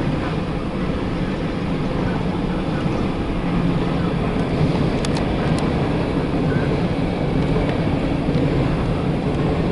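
Empty coal hopper cars of a CSX freight train rolling past on the rails: steady rolling noise of steel wheels on track, with a few sharp clicks about five seconds in.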